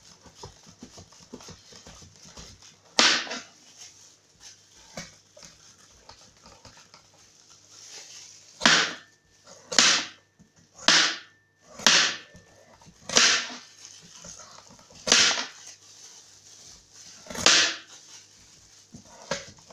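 A kitchen knife shaving the rind off a butternut squash: about eight short scraping strokes, most of them coming roughly one a second through the middle stretch.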